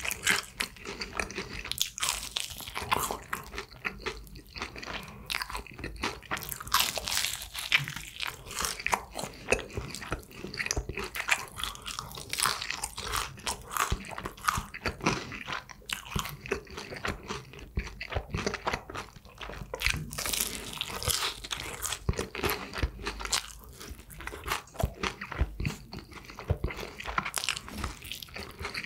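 Biting and chewing crispy Kyochon Honey Combo fried chicken: many quick, irregular crunches of the fried crust with wet chewing between them.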